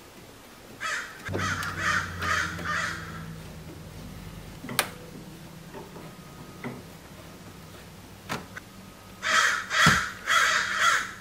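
A bird calling loudly with a run of three or four harsh calls near the start and another run near the end: obnoxious noise in the background. A single sharp click comes about halfway through.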